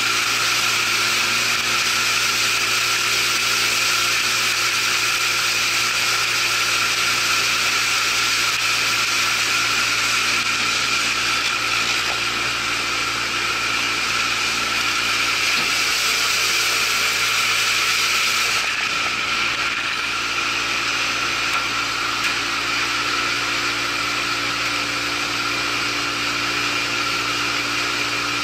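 Boat's outboard motor running steadily at cruising speed, a constant drone with a whine over it.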